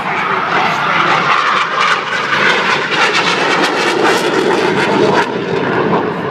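Yak-130 jet trainer's twin turbofan engines: a loud, steady jet rush that eases slightly about five seconds in.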